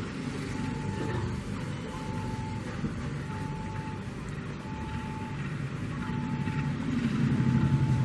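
Diesel locomotive approaching slowly, its engine rumble growing louder toward the end. A steady mid-pitched beep repeats about every 1.2 seconds throughout.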